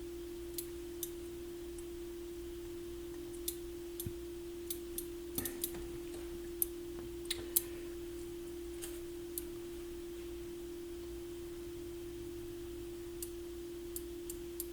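Sparse, irregular small clicks and ticks of the parts of a Sony STR-6060F receiver's power switch assembly being handled and bent by hand, over a steady mid-pitched hum tone.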